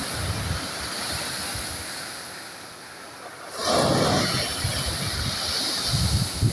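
Sea waves washing on the shore. The surf eases off, then a wave breaks loudly a little past halfway. Wind gusts buffet the microphone.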